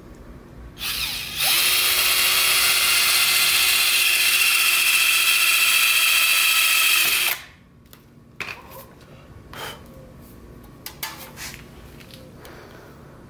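Cordless drill boring a hole through a metal license plate with a twist bit. It starts briefly at lower speed about a second in, runs steadily at full speed with a constant whine for about six seconds, then stops sharply. A few light clicks and knocks follow.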